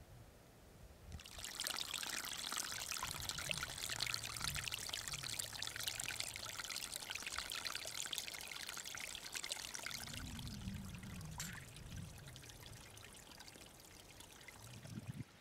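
Water running and splashing, starting suddenly about a second in and fading over the last few seconds.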